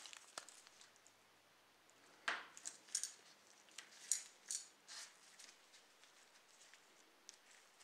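Small plastic model-car parts handled by gloved hands: scattered light clicks, taps and short scrapes of plastic, a few seconds apart.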